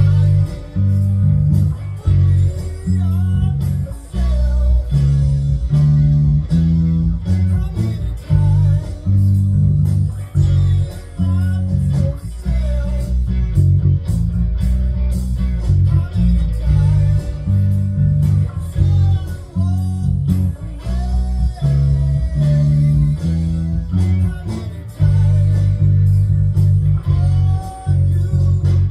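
Electric bass guitar playing a blues bass line through an amp, notes changing about twice a second, along with blues band music that has a lead guitar bending notes above it.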